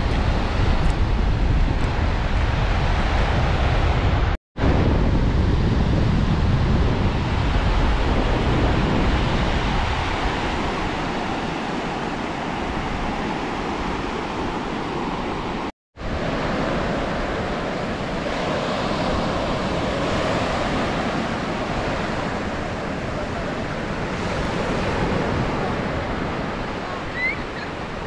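Ocean surf washing onto a beach, with wind buffeting the microphone, heaviest in the first third. The sound cuts out completely twice for a moment.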